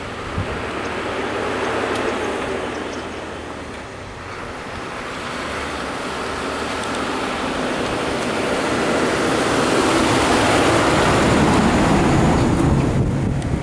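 Diesel engine of a Lanka Ashok Leyland bus running as the bus pulls away and drives close past, growing steadily louder to its loudest near the end, then falling off suddenly as it passes.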